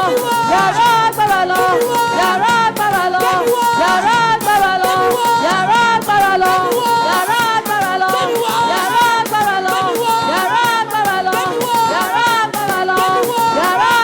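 Worship music: voices singing a melody over a steady shaker rhythm.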